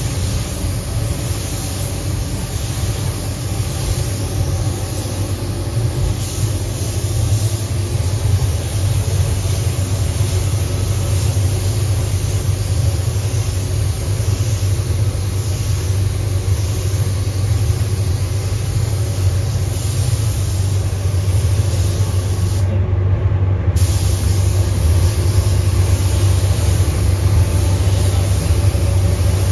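Compressed-air hiss of a gravity-feed spray gun spraying silver car paint, over a steady low rumble. The high hiss cuts out for about a second once, roughly three quarters of the way through, while the rumble carries on.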